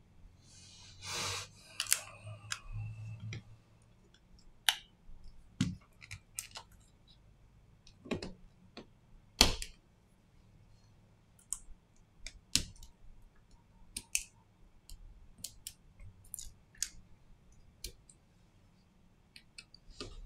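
Scattered small clicks and taps of hand tools and parts being handled on a Samsung Galaxy A52s 5G smartphone during a screen repair. There is a brief noisy rush about a second in and a few louder taps along the way.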